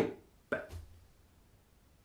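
The end of a man's Latin recitation: his voice stops right at the start, a short mouth or breath sound follows about half a second in, then near silence.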